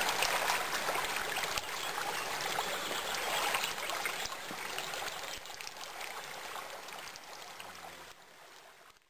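Shallow stream running and splashing over stones as someone wades in it and sweeps a net through the water, gradually fading out near the end.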